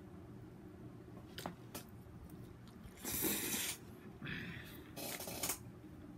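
Close-miked eating noises from a man eating baked chicken and spaghetti: a couple of soft mouth clicks, then three short hissing bursts of mouth and breath noise in the second half, the first the loudest.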